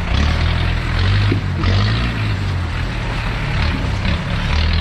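Off-road 4x4's engine running under load on a rough trail, its low note swelling and easing with the throttle, over a constant rushing noise.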